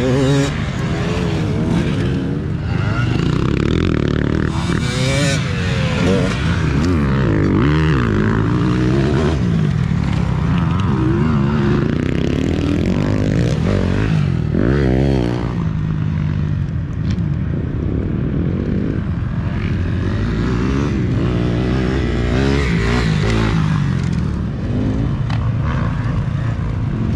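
Dirt bike engines revving hard as riders race by on a dirt track, the pitch climbing and dropping again and again with throttle and gear changes. Several bikes are heard at once, their sounds overlapping.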